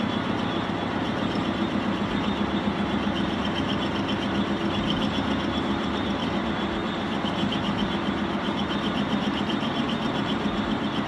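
Metal lathe running steadily with its chuck spinning, the tool being fed slowly across the end of a steel bar in a facing cut. The sound is an even machine noise with a fast, regular flutter.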